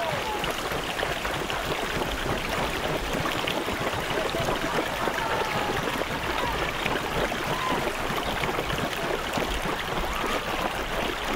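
Rushing water of a shallow mountain river, with hooves splashing as a line of pack animals wades across.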